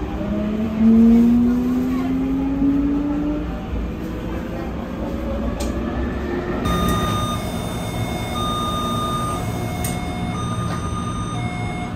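Taipei Metro train slowing to a stop, its traction motors whining in a rising tone for the first few seconds over the running rumble. Then, from about halfway in, the car's electronic door chime beeps over and over in alternating high and low tones as the train stands at the platform.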